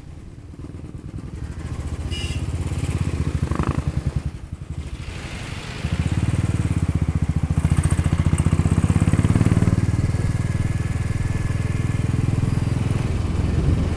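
Motorcycle engine running with a steady pulsing beat as the bike pulls away and rides along, building over the first few seconds, easing off briefly, then louder and steady from about six seconds in.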